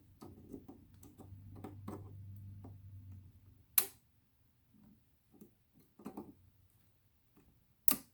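Small clicks and knocks of battery cells and hand tools being handled, with two sharp clicks about four and eight seconds in.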